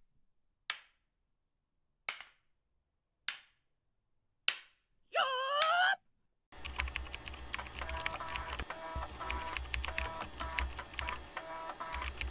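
Four short hits about a second apart and a brief wavering electronic tone, then, from about six and a half seconds in, rapid computer-keyboard typing over a beat with a pulsing bass and repeated tones.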